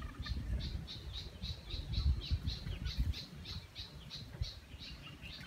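Young chickens calling: a steady run of short, high peeps, about three or four a second, over low rustling.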